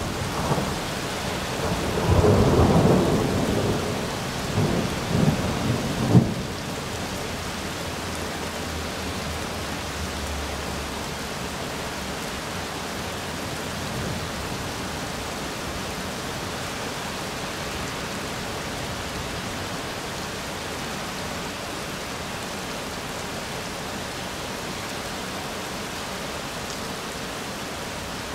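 Thunder rumbling in heavy surges during the first six seconds, ending in a sudden sharp clap about six seconds in. Steady rain hiss carries on alone for the rest.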